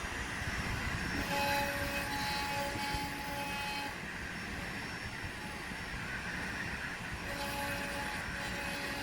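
CNC router carving wood with a 15-degree tapered V-bit: steady spindle and cutting noise, with a thin whining tone that comes in about a second in, drops out partway through and returns near the end.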